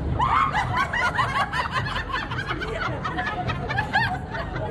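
Laughter in quick, repeated short bursts, over a steady low background rumble.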